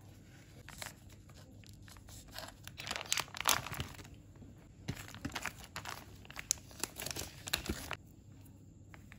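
Plastic sausage packet crinkling and rustling as it is handled and cut open with scissors, in a run of irregular bursts, loudest about three seconds in, stopping about a second before the end.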